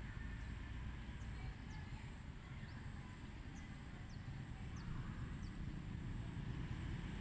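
Quiet steady background noise: a low rumble with a faint high-pitched whine, and a few faint short chirps.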